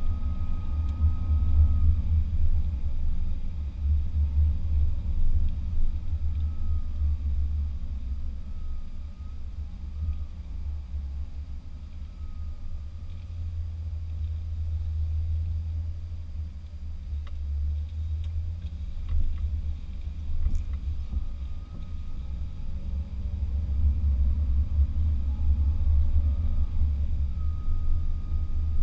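Land Rover Discovery driving over soft sand while towing a trailer, heard from inside the cabin as a steady low rumble of engine and tyres. It is louder at the start and again near the end and eases off in the middle.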